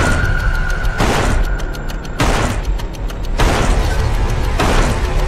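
Dramatic trailer music: a low drone with heavy percussive booms about once a second, each ringing out.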